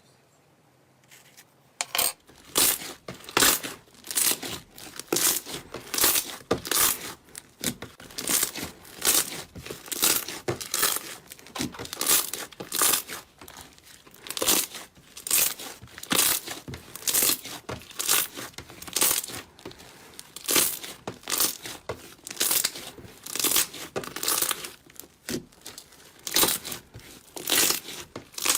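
Slime being worked by hand, crackling in repeated squeezes or pulls at about two a second, starting after a quiet first two seconds.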